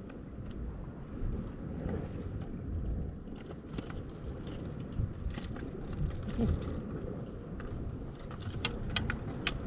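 Shimano Stradic SW spinning reel being cranked, a mechanical gear whir with clicks, as a hooked fish is reeled in, over a steady low rumble of wind and surf. A few sharp clicks come near the end.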